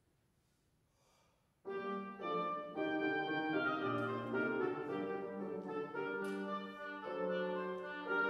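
About a second and a half of near silence, then an oboe and a piano start playing together suddenly: a Baroque sonata movement for oboe with piano accompaniment, played live.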